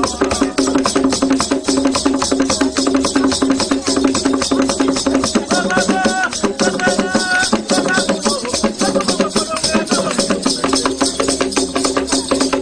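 Ugandan traditional dance music: a fast, steady pattern of shaken rattles and drums, with voices singing a short wavering phrase about halfway through.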